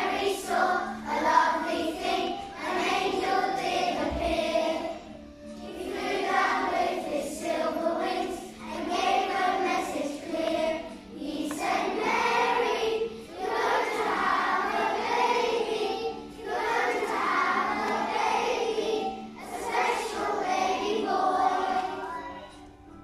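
Children's choir singing, in sung phrases of a few seconds each with short breaks between them.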